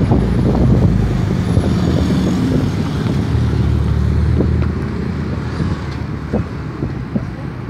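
Car running, heard from inside the cabin: a steady low rumble of engine and road noise, with a few short knocks scattered through it.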